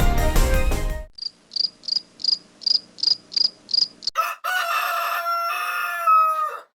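Background music cuts off, then a cricket chirps about nine times in an even rhythm, followed by a rooster crowing once, a long call that drops in pitch at the end.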